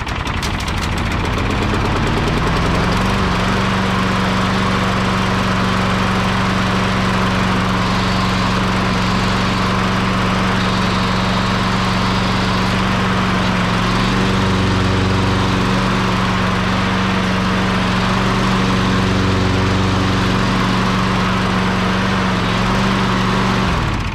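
Toro walk-behind lawn mower engine running with its newly fitted blades, rising to speed over the first few seconds after catching, then running steadily until it shuts off abruptly near the end.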